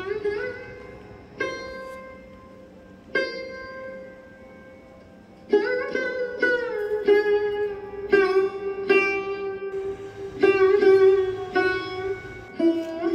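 Background instrumental music on a plucked string instrument, Indian in style: a few slow single notes ringing out, then a quicker run of notes from about halfway through.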